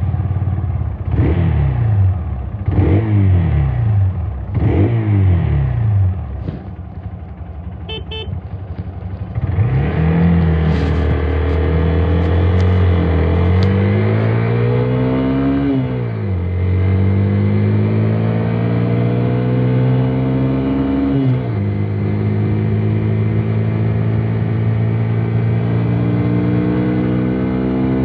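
Hero XPulse 200's 200cc single-cylinder engine on its stock exhaust. It is revved sharply three times and falls back to idle after each rev, then idles briefly. It then pulls away and accelerates, the engine pitch climbing and dropping twice at gear changes before it settles into steady running.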